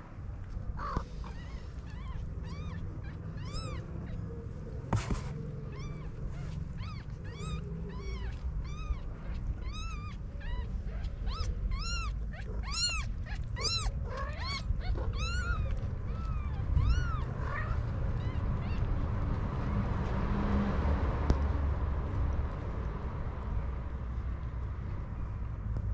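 Newborn kittens mewing: a long run of short, high-pitched squeaks, two or three a second, that dies away about two-thirds of the way through.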